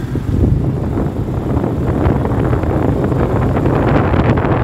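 Wind rushing and buffeting over the microphone of a moving vehicle, a steady loud rumble with the vehicle's running noise underneath.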